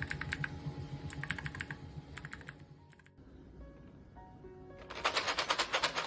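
Typing on a mechanical keyboard with custom keycaps: short bursts of key clicks, a pause, then a faster, louder run of keystrokes near the end. Background music plays underneath.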